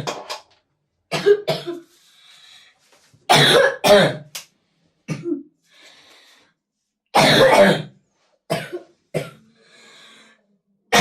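A 12-year-old boy's coughing fit: clusters of two to four coughs every second or two, with noisy breaths drawn in between. It is his chronic cough, of a cause no doctor has diagnosed.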